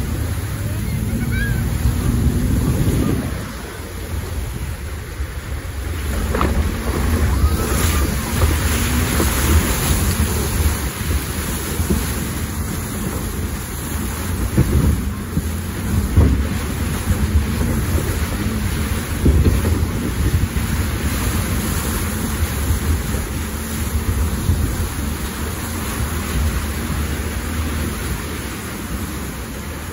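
4x4 wading up a shallow, rocky river: water rushing and splashing against the body over a deep rumble. The splashing is heaviest for the first three seconds or so, then drops, with occasional louder thumps.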